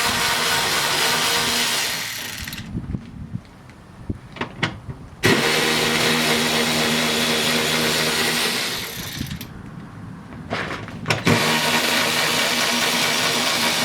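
Cordless power drill/driver whirring at a steady speed in three runs, backing out the screws that hold a car door's armrest bracket. The first run stops about two and a half seconds in, the second runs from about five to nine seconds, and the third starts about eleven seconds in, with small clicks in the gaps.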